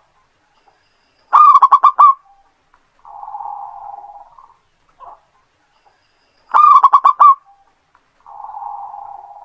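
Zebra dove (perkutut) singing its cooing song twice: each phrase is a loud quick run of about six coos, followed by a softer rolling coo about a second and a half long, with a short single note between phrases.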